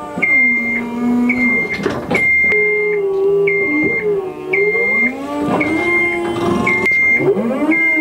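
Aerial work lift's motion alarm beeping, a high short tone about once or twice a second as the platform moves. Louder background music with sliding, guitar-like notes plays over it.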